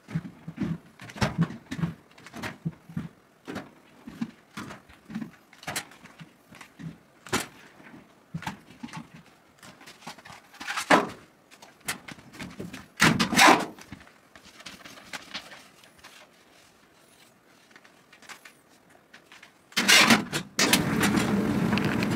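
Wet laundry being pulled from a washer and loaded into a clothes dryer drum: a string of soft rustles and knocks, with louder thuds around 11 and 13 seconds in. Near the end comes a loud knock, then a second or so of steady noise that cuts off abruptly.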